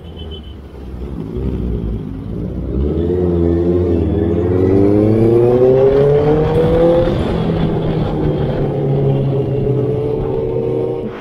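Honda CBR motorcycle engine heard from on the bike, running low and even at first, then revving up in one long rising pull from about three seconds in as the bike accelerates, and settling to a steady pitch at cruising speed near the end.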